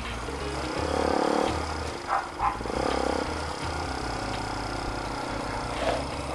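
Motorcycle running under way through its new muffler, with a low rumble and wind buffeting on the microphone. The exhaust note rises briefly about a second in and again near three seconds.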